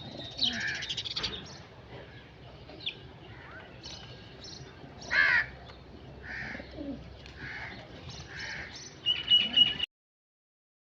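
Crows cawing at intervals, with smaller birds chirping in between; the loudest caw comes about five seconds in. A quick run of calls near the end stops abruptly.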